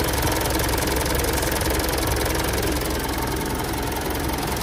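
Mitsubishi Strada's diesel engine idling with a steady, rapid clatter.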